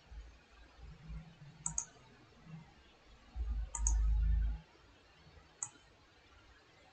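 Computer mouse clicks: a quick press-and-release pair about 1.7 s in, another pair near 3.8 s, and a single click near 5.6 s. A low dull rumble, the loudest sound, runs from a little after 3 s to about 4.6 s.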